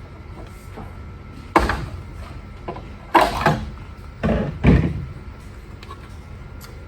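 Hard knocks and clunks of the plastic and metal parts of a Bissell 677 commercial carpet sweeper being handled as its rake is worked free of the frame: one knock about a second and a half in, then a cluster of four between three and five seconds in.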